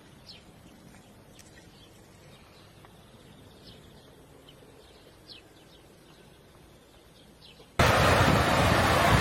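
Faint, scattered bird chirps over a quiet outdoor background. About eight seconds in, a loud, steady rushing noise, like wind on the microphone, cuts in suddenly.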